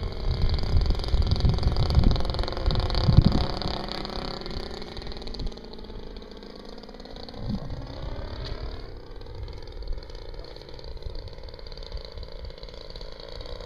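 Turnigy 26cc two-stroke gasoline engine of a quarter-scale RC Piper Cub running in flight overhead. Its pitch slides down and later rises again as the plane passes and turns. Low wind rumble on the microphone during the first few seconds.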